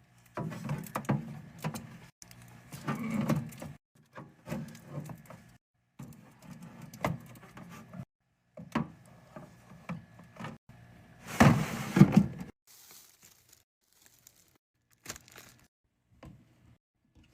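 Restocking a mini fridge: drinks and snack packages being handled and set in place, a run of clicks, knocks and rustling clatters broken by short silences, loudest about two-thirds of the way through.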